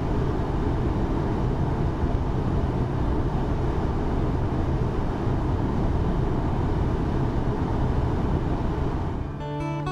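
Steady low rumbling noise on the open deck of a river cruise ship underway, from wind and the moving ship, with no clear engine tone. Acoustic guitar music fades in near the end.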